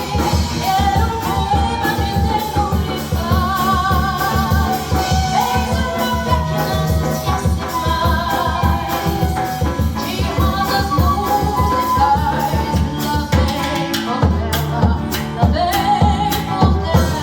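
A samba played by a small acoustic group: guitar and hand percussion keep a busy rhythm under a wavering melody line from voice and flute. The low accompaniment drops out briefly near the end.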